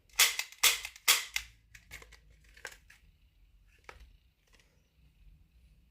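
Toy gun clicking: three loud sharp clicks in quick succession in the first second, then a few fainter clicks and handling noises.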